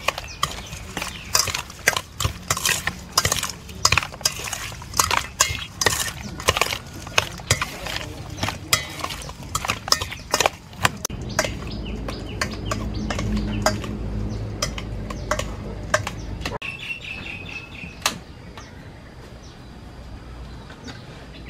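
Small raw fish being mixed by hand in a stainless steel bowl: quick clinks and taps against the metal for about the first ten seconds, then a duller rubbing rumble. About sixteen seconds in it turns quieter, with a bird chirping briefly.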